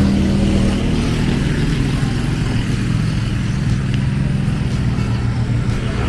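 Engine of a slow-moving motor vehicle running steadily, an even low hum with no change in speed.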